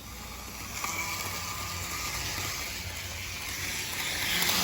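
Bachmann HO scale model train running on its track: the locomotive's electric motor whirs and the wheels rattle over the rails, growing steadily louder as it gets under way.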